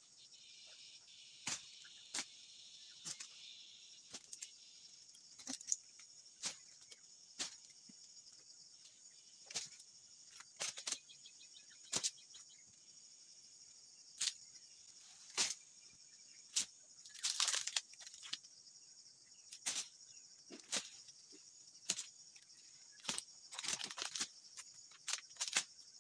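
Dodos, a chisel on a long pole, striking and cutting into oil palm frond bases: sharp cracks at irregular intervals, about one every second or two. There is a longer crunching rustle about two-thirds of the way in and a quick cluster of cracks near the end. A steady high insect buzz runs underneath.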